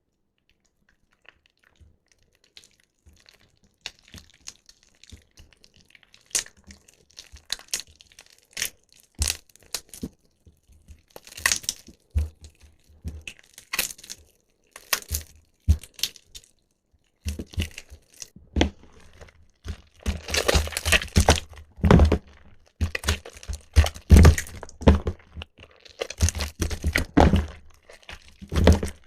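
Soaked bar soap being squeezed and crushed by hand, giving crackling, crunching sounds. They start sparse and quiet, then come thicker and louder from a little past halfway.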